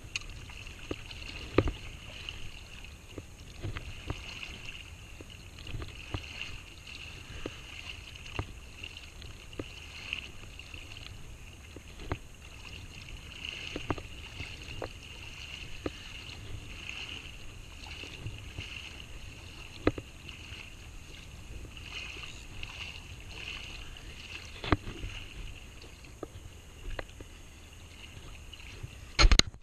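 Shallow sea water lapping and sloshing around a camera held at the surface, with a low rumble and a steady faint high hiss. Scattered sharp knocks and clicks sound every second or two, the loudest near the end.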